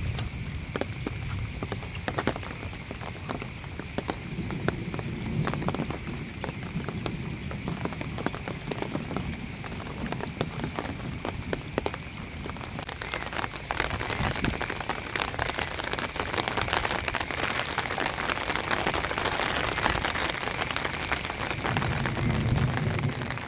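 Heavy rain falling, a dense patter of raindrops that grows louder about halfway through.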